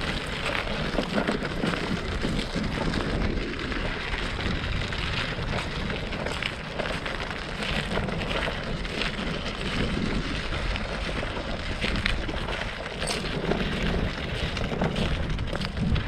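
Wind rumbling on the microphone over steady crunching of walking across sand thick with broken shells, a dense irregular crackle.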